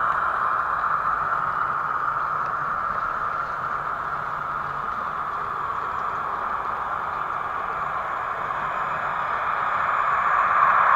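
Model train of Network Rail yellow coaches running past on garden track. Its wheels and motor make a steady rolling rumble that grows louder near the end as the motorised power car draws close.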